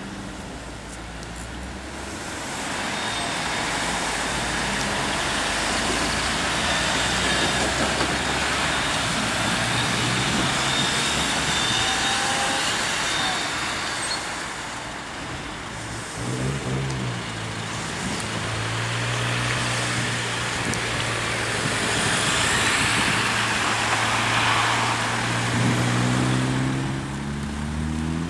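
Road traffic at a junction: cars driving past with their engines running. Twice, about midway and again near the end, a car's engine note rises as it pulls away.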